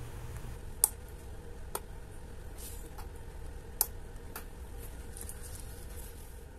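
A handful of faint, sharp, irregularly spaced small clicks as the winding crown on a newly fitted stem of an automatic watch movement is worked and released in a movement holder, over a low steady hum.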